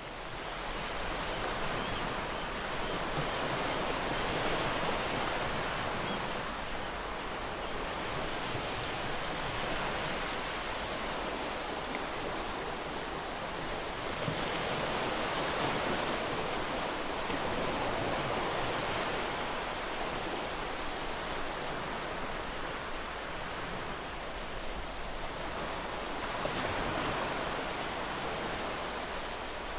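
Ocean surf breaking and washing on a shore, a continuous rush of water that swells and eases every several seconds.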